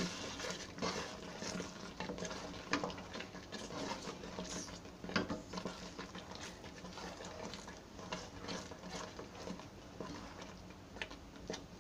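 Wooden spatula stirring thick, simmering mango jam in a dark non-stick pan: irregular scrapes and clicks of the spatula against the pan with wet sloshing of the fruit, over a faint steady hum.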